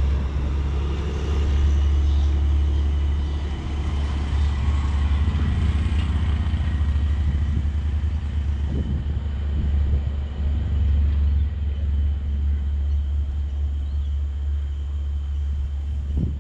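Diesel train moving away, its engine running and fading over the first few seconds, over a steady low rumble.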